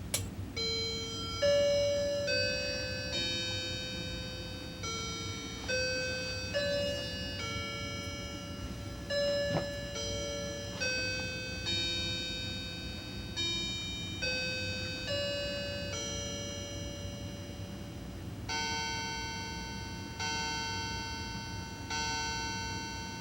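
Linden quartz mantel clock's electronic chime playing a melody of single bell notes, one after another. About eighteen seconds in, slower and fuller bell tones begin, striking the hour for four o'clock. There is a click at the very start.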